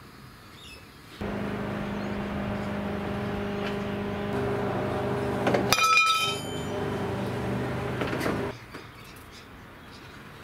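A steady motor hum starts suddenly about a second in and cuts off near the end. About six seconds in, a sharp metallic clank with brief ringing as the aluminium-framed solar panel knocks against the caravan's roof.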